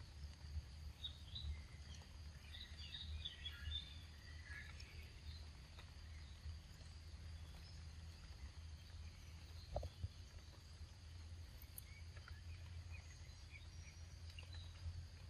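Faint outdoor ambience: a steady low hum with a thin, steady high insect drone. A scatter of soft small clicks and chirps comes in the first few seconds, and a single sharp tick comes near ten seconds in.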